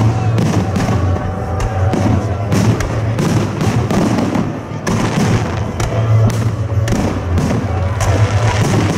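Fireworks display: a rapid, continuous series of bangs and crackles from bursting shells, over background music.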